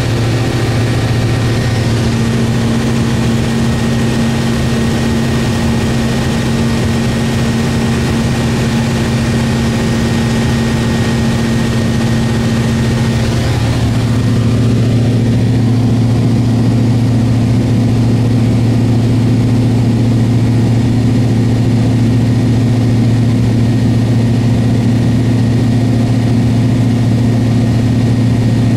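Cessna 172's piston engine and propeller heard from inside the cabin, a loud steady drone at climb power after takeoff. About halfway through the drone gets a little louder and its tone shifts slightly.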